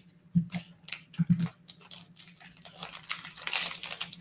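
Foil wrapper of an Illusions football card pack crinkling as it is handled and opened, building up from about halfway in. A few short low sounds come in the first second and a half, over a faint steady hum.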